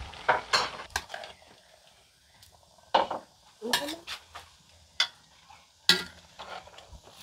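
A spatula stirring and scraping chow mein noodles in a cast-iron pot, in irregular strokes that come in a cluster, pause briefly after about a second, then return roughly once a second, over faint frying.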